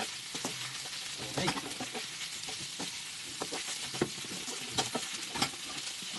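Strips of meat sizzling in a frying pan as they are stir-fried, with the spatula scraping and tapping against the pan at irregular moments.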